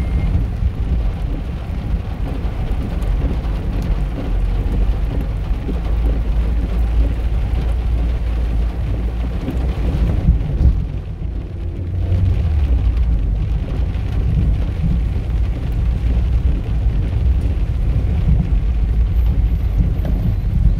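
Steady rain falling, with a constant deep rumble under it.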